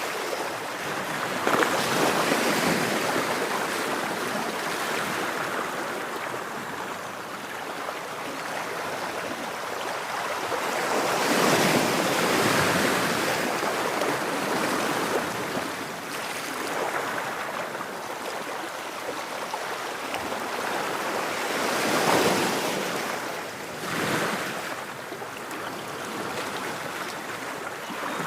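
Waves breaking and washing back: a continuous rush of surf that swells to a louder break three times, about ten seconds apart, and ebbs between.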